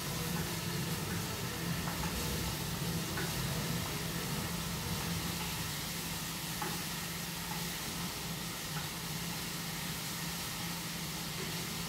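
Food sizzling in a frying pan on a gas stove while being stirred with a utensil, with a few faint light scrapes and taps. A steady low hum runs underneath.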